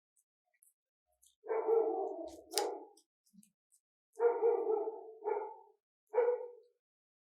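A dog barking in a run of about five loud barks, starting about a second and a half in, with faint ticks before them.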